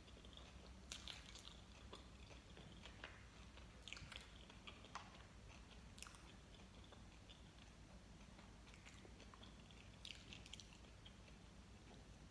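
Faint close-up chewing of gummy candy, a soft, sticky chewing of gummy and jelly sweets with small wet mouth clicks now and then.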